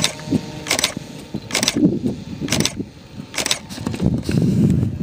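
Radio-controlled model airplane's engine running as the plane takes off and climbs, mixed with a rough rumble of wind on the microphone that swells near the end. A sharp click repeats a little faster than once a second.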